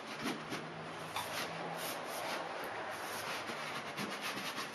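Corrugated cardboard scraping and rubbing as an outer shipping box is worked up and off a white inner box, in a run of short irregular scuffs.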